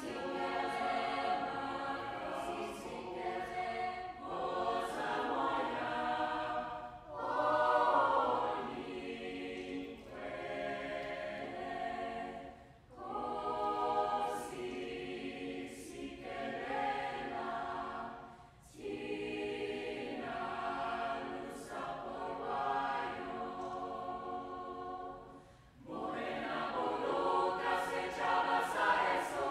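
Mixed-voice choir singing a South African song a cappella in full chords, in long held phrases with short breaks for breath between them.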